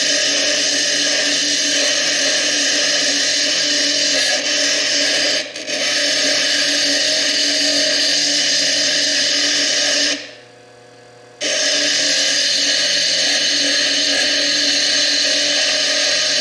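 Foredom bench lathe running an 80-grit quarter-inch burr that grinds the chalcedony cap off a fire agate: a steady whine with a grinding hiss. It dips briefly about five and a half seconds in, stops for just over a second around ten seconds in, then starts again.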